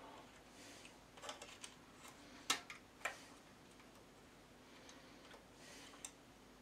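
A few scattered quiet clicks and light taps from small parts being handled and fitted on a workbench, the sharpest about two and a half seconds in.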